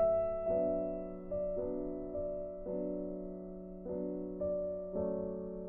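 Background piano music: slow notes, each struck and then fading before the next.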